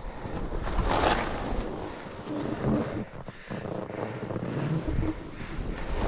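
Skis hissing and swishing through fresh powder snow while turning down a run, with wind rumbling on the microphone; the loudest swoosh comes about a second in.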